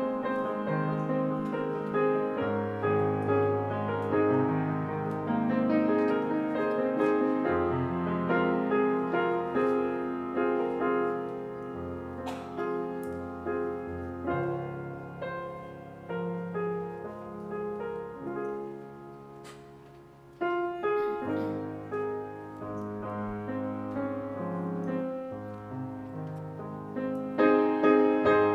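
Solo Yamaha grand piano playing a slow worship-song arrangement, with a bass line under chords and melody. It grows softer to a low point about twenty seconds in, comes back stronger at once, and swells louder again near the end.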